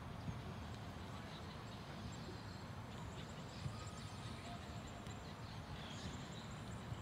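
Faint outdoor ambience of a distant football game: steady wind rumble on the microphone, with a few faint thuds of the ball being kicked, about a third of a second in, near the middle and at the very end.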